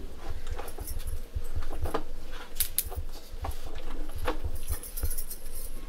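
Scattered light clinks and taps of fingers and steel dishes while eating by hand from steel thalis and bowls, over a low rumble.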